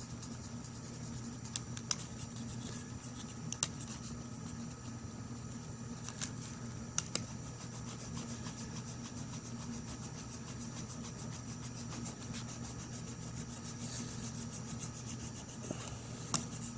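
A steady low hum runs under faint rubbing and scraping as adhesive roof tape is pressed and smoothed down by hand with a tool, with a few short sharp clicks scattered through it.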